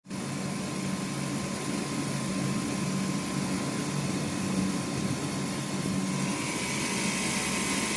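CNC turning lathe running: a steady machine hum with a constant high whine, joined by a second, higher whine about six seconds in.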